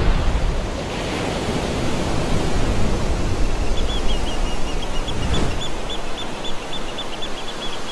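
Rushing, surf-like whooshing noise with a deep rumble under an animated title sequence, swelling in a sweep at the start and again about five seconds in. From about four and a half seconds, a quick run of short high chirps, about four a second, plays over it.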